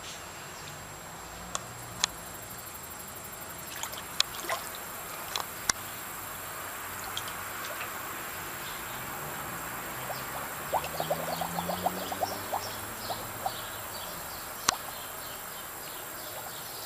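Water trickling from a garden hose into a shallow plastic paddling pool, as a steady hiss. Sharp little splashes come here and there as a husky moves its muzzle through the water, with a quick run of them about eleven seconds in.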